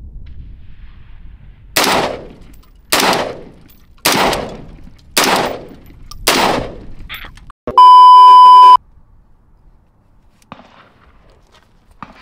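Five unsuppressed rifle shots from a full-size AR-15 firing supersonic .223 55-grain rounds, evenly spaced about one a second, each a sharp crack with a short echoing tail. About a second after the last shot comes a loud, steady electronic beep lasting about a second.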